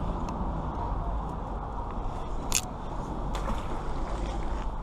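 Steady low outdoor rumble with a few small clicks, and one sharp click about two and a half seconds in.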